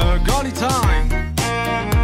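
Background music with a steady drum beat and a bending melody line.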